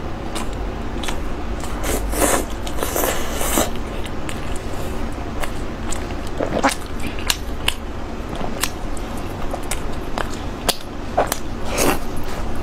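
A person biting and chewing food close to the microphone: irregular sharp mouth clicks and smacks, with a denser crunchy stretch about two to four seconds in.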